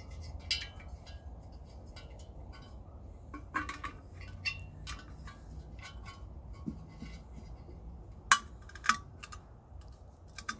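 Scattered light clicks and clinks of fuel hoses and in-tank fuel filters being handled and pushed into a pocket bike's gas tank, with two sharper clicks a little over eight and nine seconds in, over a low steady hum.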